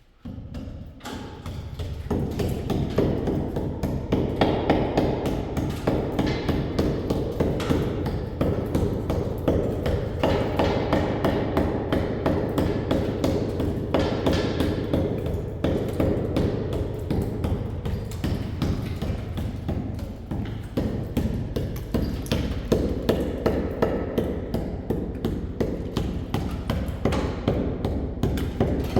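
A rapid, steady run of thumps and taps, many a second, starting about two seconds in.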